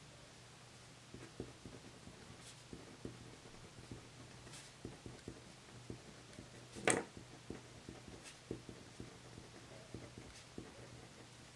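Faint scratching and ticking of a gel pen writing on lined notepad paper, stroke after stroke, with one louder knock about seven seconds in.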